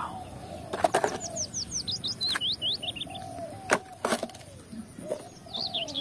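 Birds chirping in quick runs of short falling notes, with a lower call repeating about once a second. Several sharp clicks and knocks of plastic toys being handled in a plastic basket cut through, the loudest a little under four seconds in.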